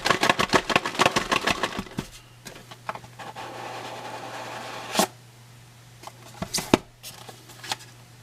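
Plastic shrink wrap crinkling as it is pulled off a cube's box, a fast run of crackles for the first two seconds, followed by a few sharp clicks and taps from handling the box.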